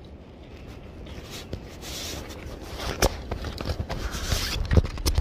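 Handling noise from a camera being moved against clothing and hands close to the microphone: rustling and scraping that grows louder, with a few sharp knocks near the end, over a low steady rumble.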